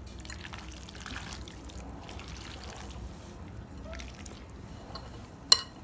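A hand squishing and mixing oil-soaked, chili-coated chopped raw mango for avakaya pickle in a glass bowl: soft, wet squelching. A single sharp click near the end.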